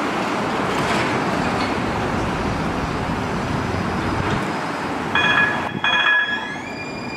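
Street traffic noise, a steady rush of passing vehicles. Then, after a cut, a San Francisco Muni Siemens S200 light rail vehicle pulling away: its electric traction drive gives a whine that rises in pitch and then holds steady as the car accelerates.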